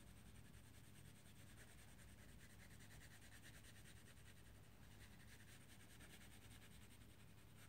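Near silence: a crayon faintly rubbing on paper as it shades.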